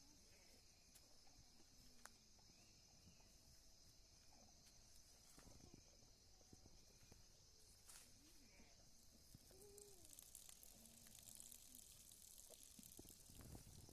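Near silence: faint outdoor farm ambience with a steady high insect drone and a few faint, brief distant calls.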